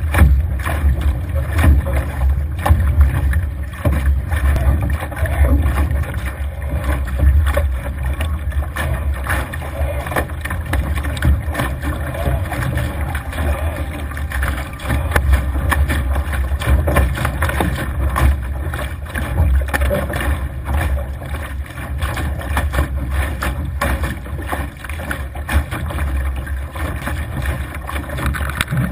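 Wind buffeting the microphone over the steady rush and splash of waves against a Laser dinghy's hull as it sails hard through choppy water.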